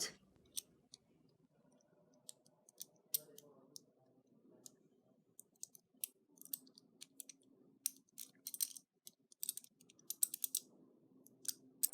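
Light metal clicks and taps from the parts of a Hanayama cast-metal padlock puzzle being turned and fiddled with in the hands, scattered irregularly and coming more often in the second half.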